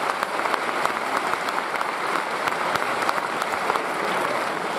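Audience applauding: dense, steady clapping of a large crowd.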